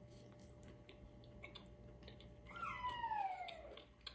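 A pet's single long cry, about a second and a half, sliding down in pitch. It comes a little past halfway through, over faint small clicks.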